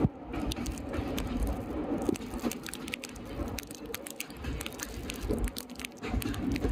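Wind buffeting and crackling on a microphone held out of a moving train's window, with irregular sharp clicks over the train's uneven low rumble as it runs across a river bridge.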